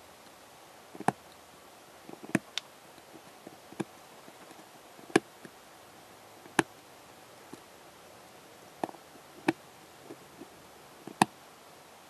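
Craft knife blade trimming a tiny plastic cube centre piece held in metal tweezers: about ten sharp clicks at uneven intervals.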